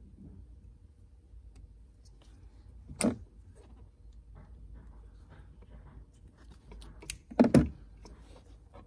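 Handling of crimping pliers on a red insulated crimp connector and wire: light ticks and rustling, a sharp click about three seconds in, and a louder pair of knocks near the end.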